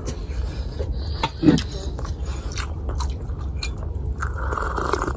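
Close-up chewing and mouth sounds of a person eating garlic fried rice by hand, with small clicks and a thump about a second and a half in. Near the end comes a sip from a mug. A steady low hum runs underneath.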